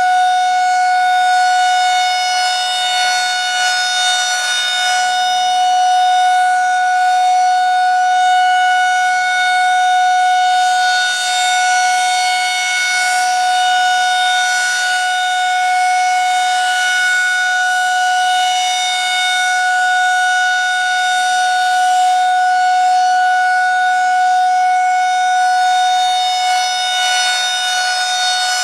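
Federal Signal 2001 SRNB electromechanical outdoor warning siren sounding its alert signal: one loud, steady tone held without rising or falling.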